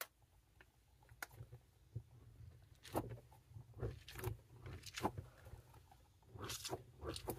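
A water-bead-filled squishy toy squeezed and rubbed in the hands: irregular soft squelches and rubbing of its soft plastic skin, coming more often from about three seconds in, over faint low handling noise. A sharp click right at the start.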